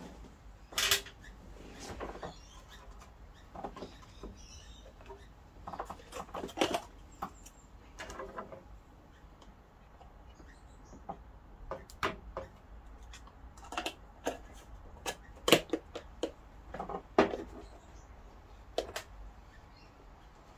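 Irregular clicks and knocks of kitchen items being handled, about a dozen sharp ones scattered through with quieter handling in between.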